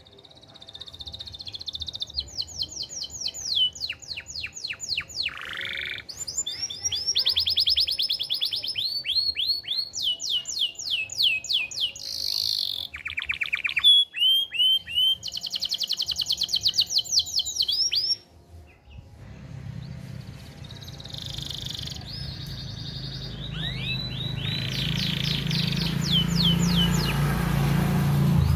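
Male domestic canary singing a long, continuous song of fast trills and rolling repeated notes, changing phrase every second or two, with a short break about two-thirds of the way through. A low hum of background noise comes up in the second half.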